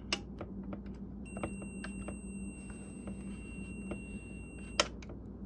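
An Invensys dryer timer knob being turned by hand, clicking through its detents. A multimeter's continuity beeper starts about a second in, a steady beep showing the timer's A and B contacts closed, and cuts off with a louder click near the end as the contacts open.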